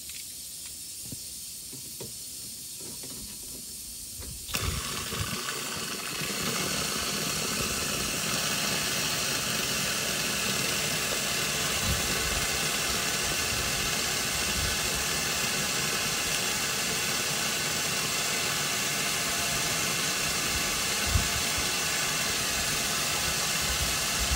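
Compressed air blowing out of a bus air-brake tank through an opened drain valve, a steady hiss that jumps suddenly from faint to loud about four and a half seconds in and holds. The blast carries out the moisture contaminating the air system.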